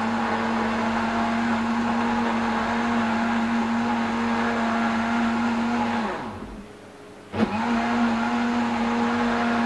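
Electric countertop blender running steadily, puréeing a watery mix of onion, lemon, salt, pepper and vinegar into a smooth marinade. About six seconds in the motor winds down and stops. It starts again with a click a second or so later and runs on.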